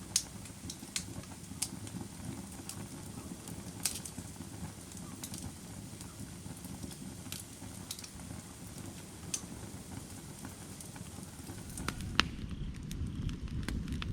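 Firewood burning: a steady low rumble of flames with sharp, irregular crackles and pops from the wood, a loud pop about twelve seconds in, and the flames growing louder near the end.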